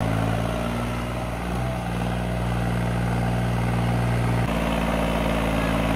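Tractor diesel engine running steadily. Its tone shifts abruptly about four and a half seconds in, then runs on evenly.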